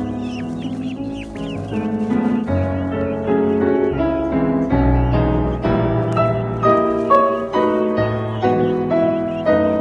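Background piano music, a steady run of notes over a bass line. Faint high peeping of peafowl chicks comes through over it, mostly near the start and the end.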